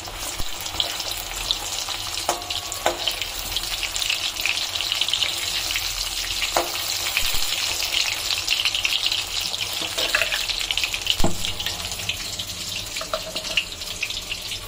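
Turmeric-coated potato chunks sizzling and crackling as they fry in hot oil in a kadai, with a few sharp knocks of the metal spatula against the pan, the loudest about eleven seconds in.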